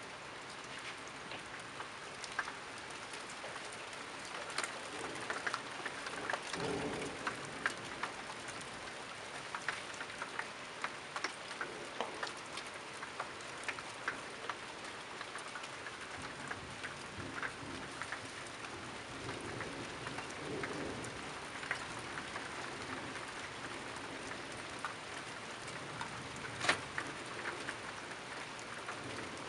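Steady rain falling, with many separate drops tapping close by and one louder tap near the end. A short low rumble swells and fades about six to seven seconds in.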